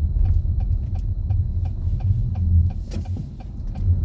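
A car running on the road, a low steady rumble, with a light regular ticking about three times a second.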